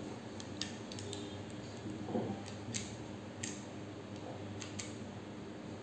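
Plastic Beyblade launcher parts being handled and pushed together, giving a scattering of small sharp clicks, about six of them.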